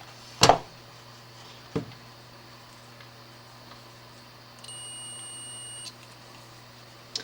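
A digital multimeter giving a steady high continuity beep for about a second and a half, a sign that the probes have found a connected wire. Before it come a sharp click and a lighter one from handling the meter and probes.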